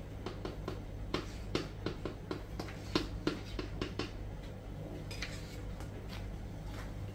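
Kitchen knife slicing sweet pepper on a plastic chopping board: a run of irregular taps, about three a second, that thin out after about four and a half seconds, over a steady low hum.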